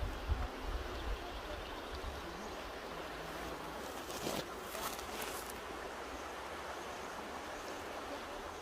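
Mountain river rushing steadily, with low wind buffeting on the microphone in the first second and a brief brighter hiss about four seconds in.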